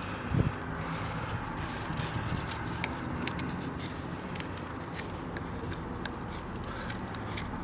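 Scraping from hoof trimming work, with scattered sharp clicks and a dull knock about half a second in.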